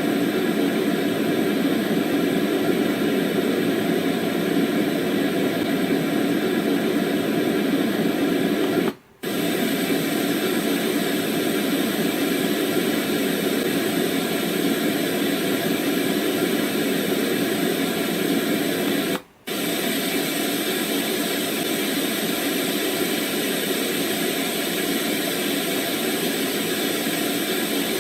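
Dreamegg D3 white noise machine playing a steady hiss. It cuts out for a moment twice, about nine and nineteen seconds in, and each time comes back with a slightly different noise, quieter after the second break.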